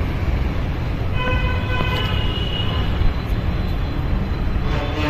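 Steady road-traffic rumble with a vehicle horn sounding for about two seconds starting a second in, and another short horn near the end.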